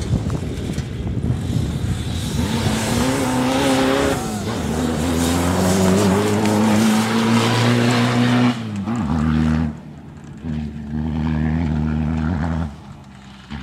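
Rally-raid pickup truck's engine running hard as the truck passes at speed on a dirt track, at first buried under a rushing noise, then a clear engine note that dips briefly about four seconds in and holds high until about two-thirds through. The note then drops and carries on quieter, fading as the truck moves away.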